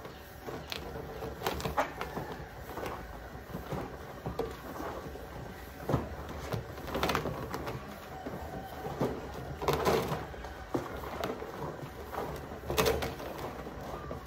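A blue plastic silage drum being scrubbed and turned by hand: irregular rubbing and scraping with scattered knocks, the louder scrapes about six, ten and thirteen seconds in.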